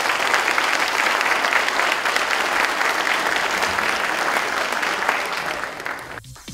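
Audience applauding: dense, steady clapping from a hall full of people, which cuts off abruptly near the end.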